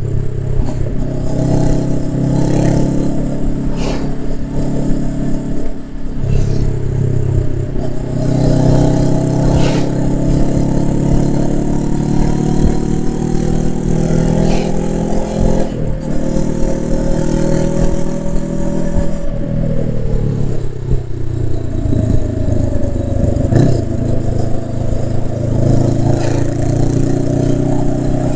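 Honda CB500X's parallel-twin engine running through its exhaust, its pitch rising and falling with slow glides and a few sudden steps as engine speed changes.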